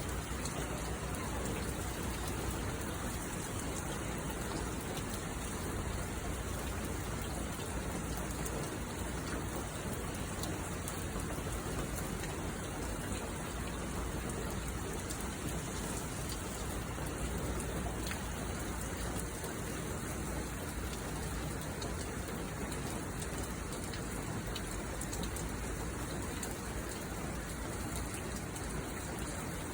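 Heavy monsoon downpour falling steadily: an even hiss of rain with scattered sharp drop ticks throughout.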